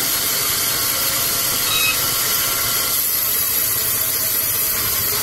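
Large vertical sawmill band saw running steadily, giving a constant mechanical hiss with a faint high whine.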